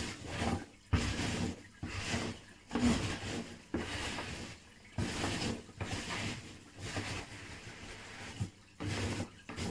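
Polystyrene packing peanuts rustling in a cardboard box as a hand rummages through them, in a series of separate bursts about a second apart.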